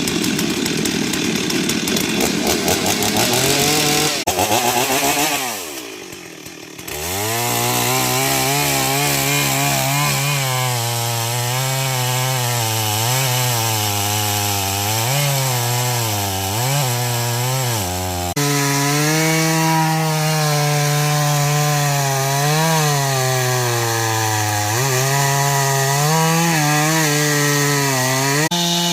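Two-stroke chainsaw cutting wood. About five seconds in the engine drops back and runs quieter, then revs up again and runs under load, its pitch wavering up and down as the chain bites.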